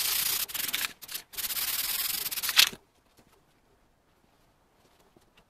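Two steady stretches of hissing, rasping surface noise on the barbecue's masked-off metal side panel, each about a second and a half long with a short break between. The sound stops a little before the halfway point.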